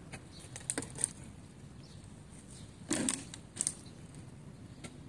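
Stray cats chewing and crunching food from a tray and off the ground: irregular small clicks and crackles, with a louder crunch about three seconds in.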